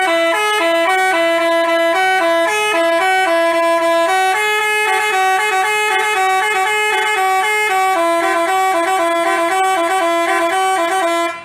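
Telolet basuri bus horn playing a tune: a long string of loud, steady horn notes stepping up and down in pitch, cutting off near the end.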